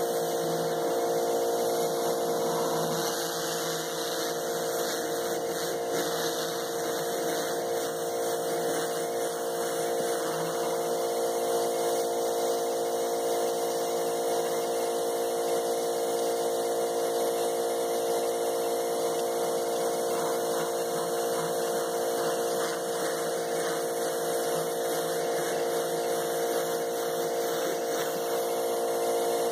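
Karcher 1900 psi electric pressure washer running steadily: the motor and pump give a steady hum under the hiss of water spraying from the turbo nozzle.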